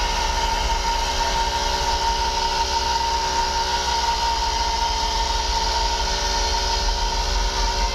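Air horns sounding a steady held chord of several tones, the strongest a high note, over a low rumble.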